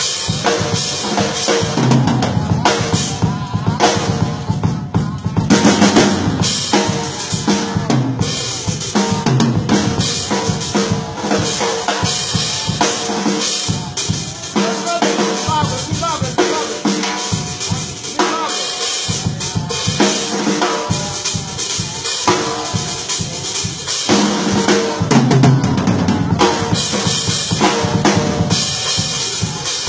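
A drum kit played continuously with dense, rapid strokes on bass drum, snare and cymbals.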